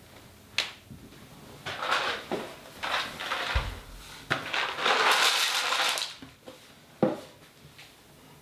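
A plastic packet crinkling and rustling in several bursts, the longest lasting over a second, with a few sharp knocks among them, one of the loudest near the end.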